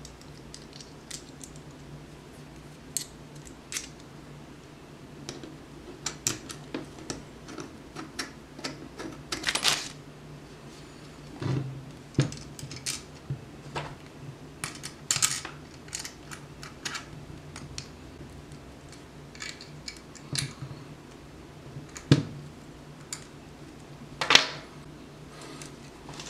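Irregular small clicks, taps and scrapes of a SmallRig aluminum microphone adapter holder being fitted and screwed onto an aluminum GoPro cage, with a few louder knocks among them. A faint steady low hum runs underneath.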